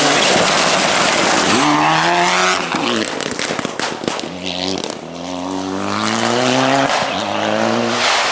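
Mitsubishi Lancer Evolution rally car's turbocharged four-cylinder engine revving hard and climbing in pitch, then a rapid crackle of anti-lag bangs as the throttle lifts a few seconds in, before it pulls up through the revs again and drops off near the end.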